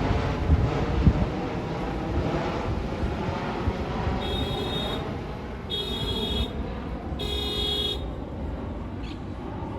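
Jet airliner passing low overhead on approach, a broad roar with a faint engine whine that fades over the first few seconds. Three short horn-like beeps, each under a second, sound about four, six and seven and a half seconds in.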